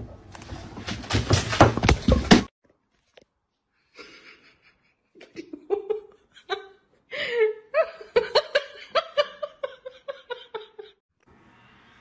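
A person laughing in a run of short, rhythmic bursts through the second half. It follows a loud rush of noise in the first two seconds that cuts off suddenly.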